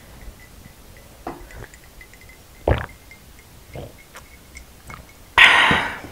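Someone drinking an iced drink from a glass jar: light clinks and liquid sounds, a sharp short sound about two and a half seconds in, and a louder burst of breathy noise near the end.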